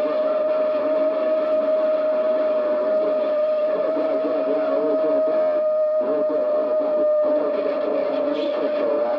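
CB radio receiver audio: a steady whistle held at one pitch over garbled, warbling voices, the heterodyne of overlapping signals on a crowded channel.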